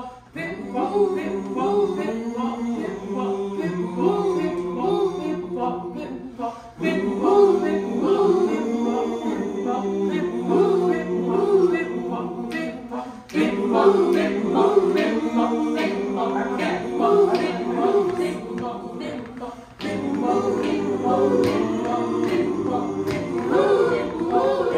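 A mixed group of voices singing an improvised a cappella piece, directed by hand. The music moves in a repeating phrase that breaks off briefly and starts again about every six and a half seconds.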